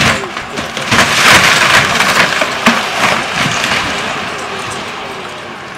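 A large boat's fiberglass and wood cabin crunching, cracking and splintering as an excavator bucket tears it apart. A sharp crack comes at the start, the loudest splintering about one to three seconds in, and it dies down after about four seconds.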